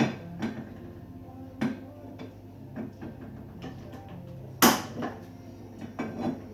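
Cookware being handled: a string of sharp knocks and clatters of pots and utensils, the loudest about two-thirds through, over a low steady hum.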